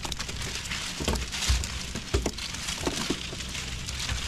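Live shrimp just dumped from a cast net flicking and flipping on a fiberglass boat deck, a rapid, irregular patter of small ticks. There are a few dull thumps.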